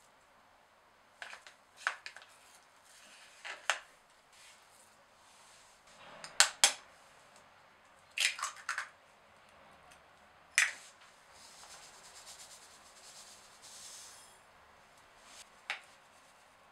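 Scattered sharp clicks and taps of a spoon and an egg against a glass mixing bowl, with the loudest pair about six seconds in. A soft rustle of a paper packet follows for a few seconds after the middle.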